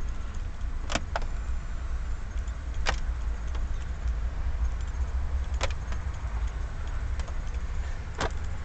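Cheap hard plastic interior trim of a Datsun on-DO crunching as it is pressed with a finger: four short, sharp crackles, two or three seconds apart, over a steady low hum. The crackling is the sign of thin, cheap plastic flexing in its mounts.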